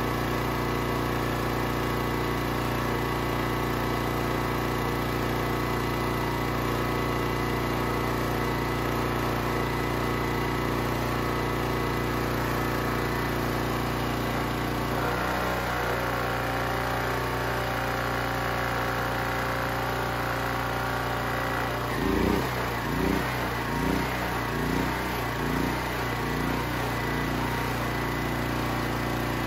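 Honda GX270-clone single-cylinder engine of a Champion generator running steadily on propane. About halfway through its note shifts, and a few seconds later it swells and dips about once a second for several beats before settling: the governor hunting, an issue the owner hopes a valve check will cure.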